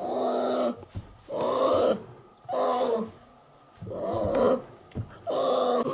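Brown bear cub crying out: five short calls, each under a second, about one every second and a half.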